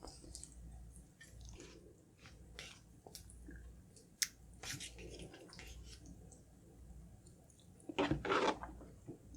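Close-miked eating: chewing with small wet mouth clicks and smacks. A louder, noisier burst comes about 8 seconds in.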